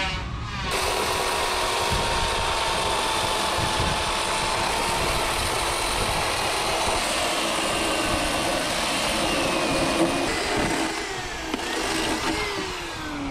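Corded electric power saw cutting through a thick hardwood plank. It starts about a second in, runs steadily under load for about ten seconds, then drops away with falling whines near the end.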